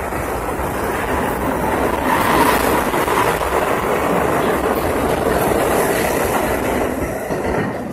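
R68A subway train pulling out of the station, its cars and wheels running past on the rails. The noise is loudest a couple of seconds in and eases near the end as the last car leaves.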